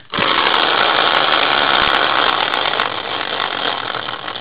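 Large hand-spun caster wheel whirring on its axle. It starts suddenly and then slowly winds down.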